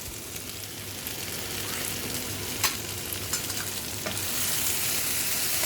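Bitter gourd pieces frying in a wok and being stirred, a steady sizzle with a few light knocks of the utensil against the pan. The sizzle grows louder about four seconds in.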